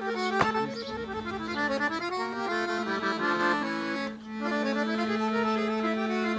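Piano accordion playing a quick melody of stepping notes over a steady held low note, with a short dip in loudness about four seconds in.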